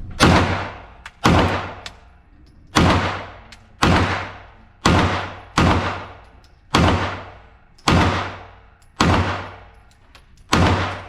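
Glock 45 Gen 5 9mm pistol being fired in slow, steady single shots, about one a second, ten in all. Each shot is a sharp crack with a short echoing tail.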